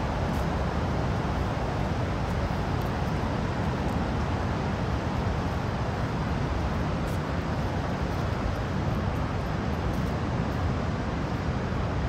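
Steady, loud roar of the Niagara River's rushing water, an even noise heaviest in the low end with no breaks or individual events.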